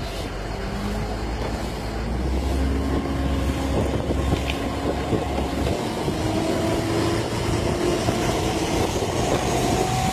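Parasail tow boat's engine running under way, with wind buffeting the microphone and water rushing past the hull; it grows a little louder about two seconds in.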